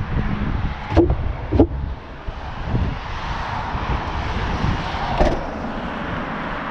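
Two sharp knocks about half a second apart from the Citroën C4's open hatchback boot being handled, then a steady rushing noise that swells briefly near the end.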